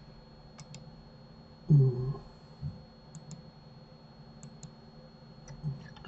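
Computer mouse clicks, mostly in quick pairs like double-clicks, repeated a few times. About two seconds in there is a single short, low sound that is louder than the clicks.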